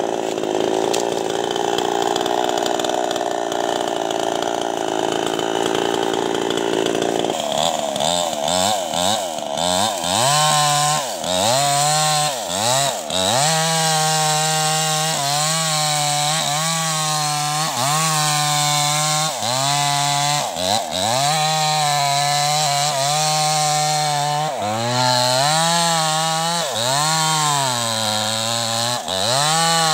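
Two-stroke New West 588 chainsaw cutting into a teak trunk at full throttle. From about seven seconds in, its engine note sags each time the chain bites and climbs back again, over and over.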